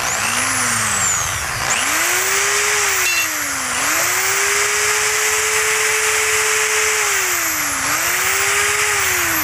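Electric drill drilling into a carburetor's stripped air screw: the motor spins up briefly and stops, then runs again with its speed dipping twice under load before winding down near the end.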